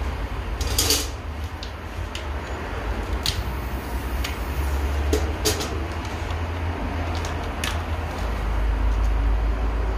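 Kitchen handling noises: several sharp clicks and knocks at irregular intervals over a steady low rumble.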